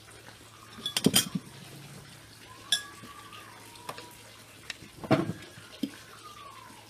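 Cutlery and plates clinking, with two short clusters of sharp clinks about a second in and again about five seconds in.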